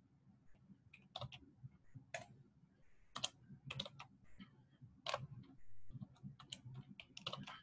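Faint, irregular keystrokes and clicks from a computer keyboard and mouse, a dozen or so sharp clicks spaced unevenly.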